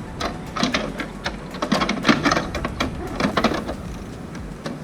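Irregular clicks, taps and knocks of plastic printer housing parts being handled and fitted together as a cover is put back on.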